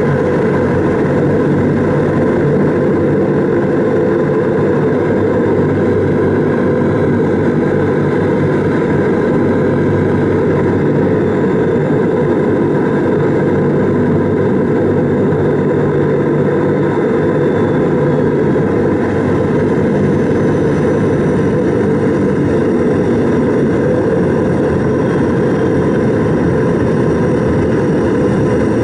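Antonov An-22's Kuznetsov NK-12MA turboprop engines and their contra-rotating propellers running steadily on the ground, heard from inside the cabin: a loud, even drone with several held tones through it.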